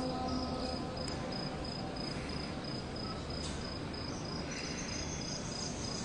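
The last held note of a muezzin's call to prayer fades out in the first second. After it a steady background hiss remains, with a high, rapid, evenly pulsing chirp like a cricket's.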